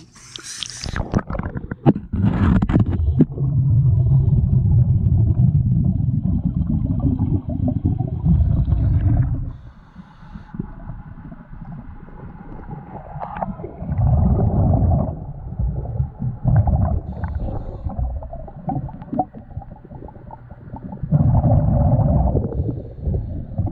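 Scuba diver breathing underwater through a regulator, heard by an underwater camera: a splash as he goes under about a second in, then exhaled bubbles gurgling loudly in three long breaths, the first about six seconds long, with quieter inhales between.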